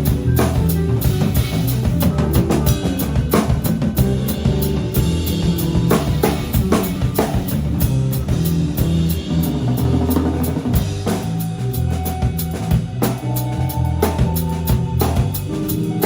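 Instrumental band of drum kit, bass guitar and guitar playing together: quick regular kick and snare hits over held bass notes, with sustained higher guitar notes joining in the second half.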